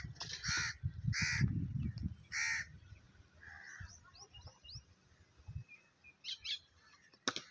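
A crow cawing four times in the first few seconds, with a low rumble under the first calls. Faint high chirps from a smaller bird follow around the middle.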